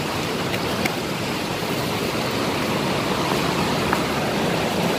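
Steady rushing background noise with a few faint clicks.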